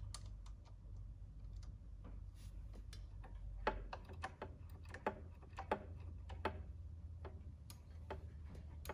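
Irregular light clicks and knocks from an 8mm tool being worked on the rear brake bleed nipple of a KTM 50SX, over a steady low hum.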